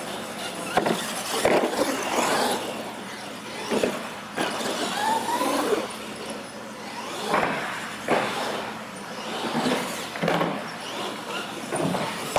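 Radio-controlled monster trucks running across a smooth concrete floor and ramps: motor whine that rises in pitch about five seconds in, tyres scrubbing, and a series of sharp knocks and clatters from landings and hits.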